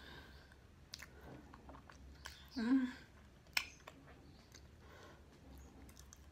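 Close mouth sounds of someone chewing soft, cream-filled garlic cheese bread: scattered wet clicks and smacks. Near the middle comes a short voiced sound from the chewer, then a sharp smack.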